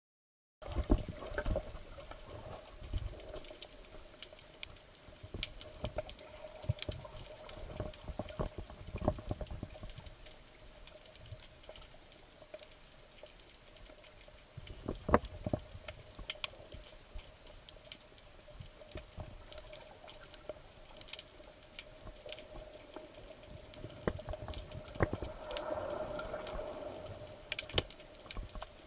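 Underwater ambience during a spearfishing dive: dense, irregular crackling clicks over a faint steady hum, with a soft swell of noise near the end.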